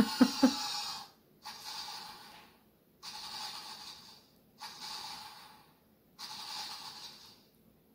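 A person breathing heavily, four long breaths about a second and a half apart, after a couple of short vocal sounds at the very start.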